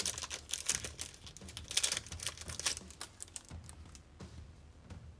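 Collectible coin's plastic packaging being handled: crinkling with rapid light clicks, busiest in the first three seconds and quieter toward the end.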